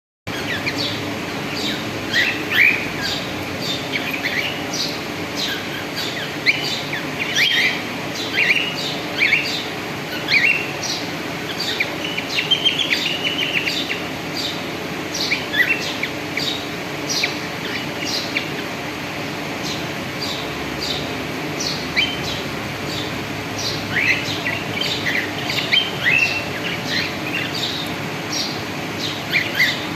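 A pair of cockatiels chirping: short, sharp calls repeated irregularly, several a second at busy moments, with a sparser stretch in the middle, over a steady low background hum.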